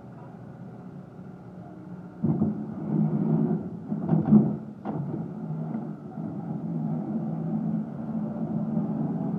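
Caterpillar skid steer loader engine running; about two seconds in it gets suddenly louder and stays up, as if throttled up or put under load. A few sharp knocks come about four to five seconds in.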